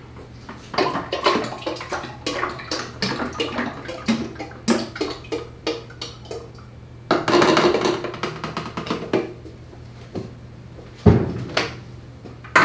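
Engine oil glugging and gurgling as it pours from a plastic quart bottle into a plastic pump-up lawn sprayer tank, with light clicks from the plastic being handled. Near the end comes a single loud thump as the filled sprayer is set down on the workbench.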